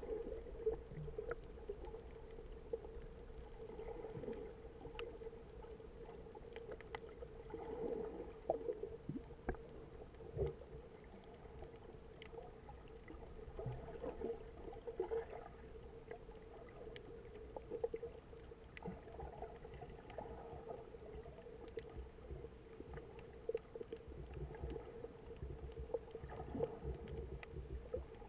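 Faint underwater sound picked up by a submerged camera: a steady low hum with a low rumble beneath it, scattered faint clicks, and a few soft swells every several seconds.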